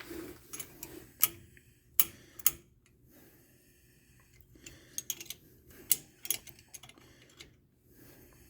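Irregular sharp clicks and taps, a few in quick succession, from hand work on a truck's rear brake caliper after a gravity bleed.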